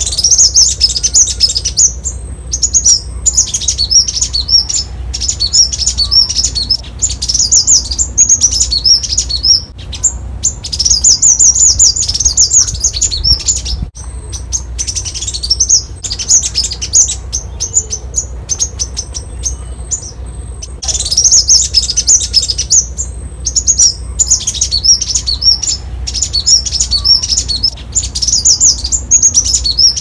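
Copper-throated sunbird calling: rapid, high-pitched twittering chirps in bursts of a few seconds, repeated with short breaks between them.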